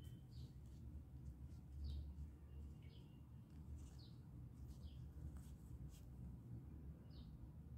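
Quiet room tone with a low steady hum, under faint short high chirps from a small bird, roughly one a second.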